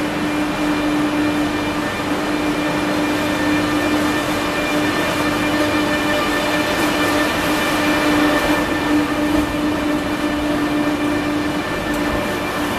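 Renfe Class 112 high-speed electric train in AVLO livery rolling slowly past along the platform: a steady electric hum with thin high whines over the running noise.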